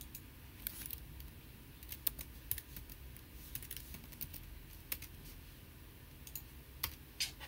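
Computer keyboard being typed on: scattered key clicks in short irregular runs, over a faint low hum.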